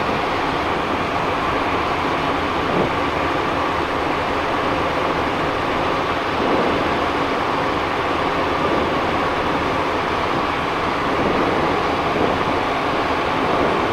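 Steady cockpit noise of a Cessna Citation Encore twin-turbofan business jet in flight: an even rush of airflow mixed with engine hum.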